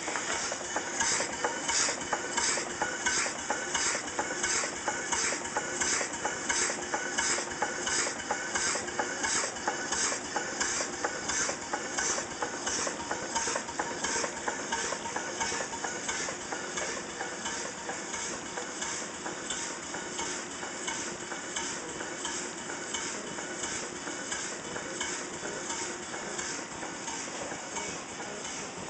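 Small vertical bottle-frame stationary steam engine, 3-inch bore by 4-inch stroke, running steadily, its exhaust hissing in an even beat of about two puffs a second.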